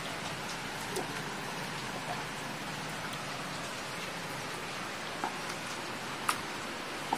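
A steady, even hiss with a few faint, short clicks of fingers working food in a small steel bowl.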